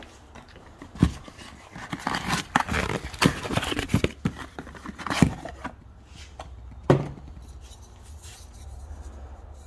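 Clatter of things being handled and moved: scrapes, clicks and knocks, busiest between about two and five and a half seconds, with sharp knocks about a second in, around five seconds and near seven seconds, over a low steady hum.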